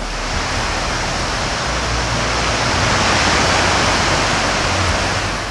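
Mountain river rushing over rocks: a steady, even hiss of white water.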